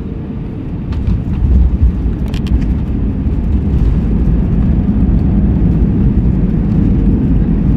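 Cabin noise of an Airbus A319 touching down and rolling out: a few sharp knocks about a second and two seconds in, then a loud low rumble builds and stays high as the ground spoilers are up and the jet rolls down the runway.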